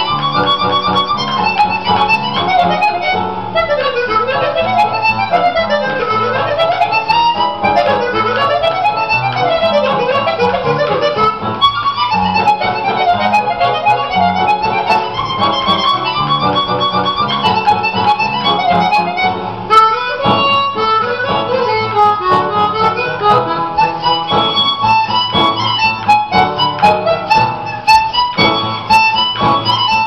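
Harmonica playing a melody, with quick runs of notes going up and down in the first half and again about two-thirds of the way through.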